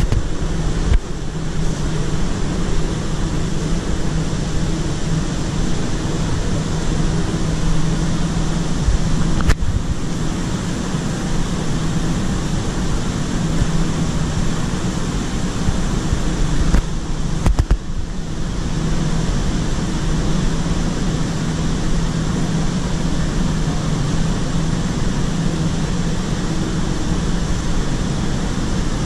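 Diesel engine of a train standing at the platform, running steadily at idle as a low, even drone. Two brief sharp knocks cut through it, about a third of the way in and a little past halfway.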